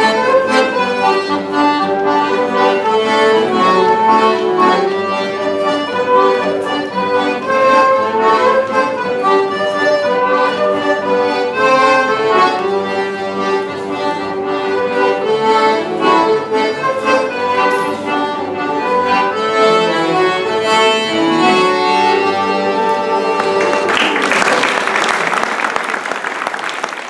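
Accordion playing a Breton folk dance tune. Near the end the audience starts applauding over the last notes.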